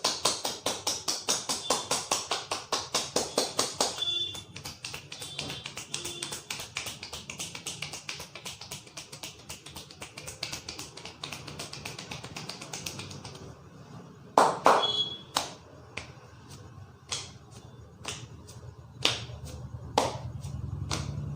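Hands striking a person's head in a fast, even rhythm of sharp slaps and chops during a percussive Indian head massage, about six strikes a second and loud at first, then quicker and fainter. Later come scattered single sharp cracks, the loudest a little past halfway.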